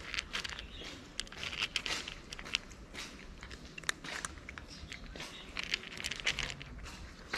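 A cat eating dry kibble: quick, irregular crunches as it bites and chews the pellets.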